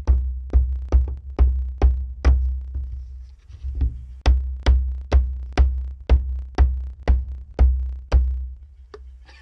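Steel claw hammer striking a glued wooden test block on a wooden deck, about two sharp blows a second with a brief pause a third of the way through. The blows are a stress test trying to force apart a Titebond III glue joint after soaking, and the joint holds.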